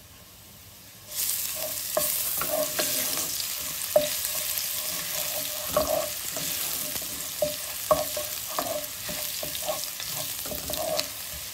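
Chopped garlic and ginger frying in hot oil in a nonstick pot, sizzling steadily, while a wooden spatula scrapes and knocks against the pot as it stirs. The sizzle grows suddenly loud about a second in.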